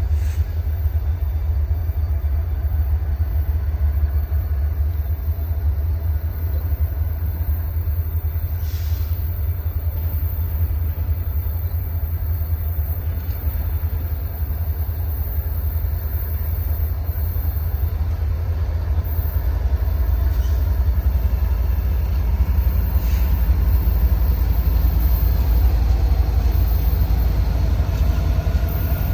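Low, steady rumble of a freight train in a rail yard, growing somewhat louder in the last third.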